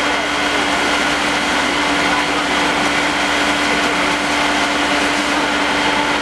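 Machinery running steadily at a constant speed: a steady hum with higher whines over a loud rushing hiss, with no change in pitch or level.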